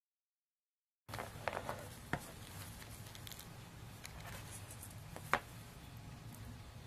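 Total silence for about a second, then faint room tone with a few light clicks and taps, the sharpest a little past five seconds in.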